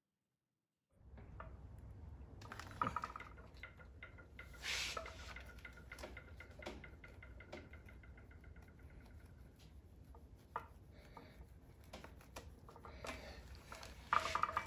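Quiet handling noise from hand-stitching a shoe welt: hemp cord and thread rustling and being drawn through the leather, with scattered small clicks and taps, starting about a second in.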